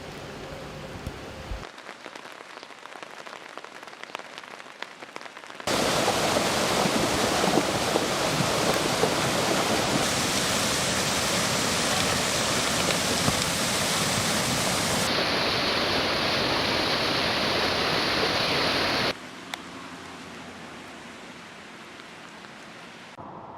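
Heavy rain pouring down, a steady hiss with no distinct strokes, heard in several short clips joined by abrupt cuts. It is loudest from about six seconds in until about nineteen seconds in, and much quieter before and after.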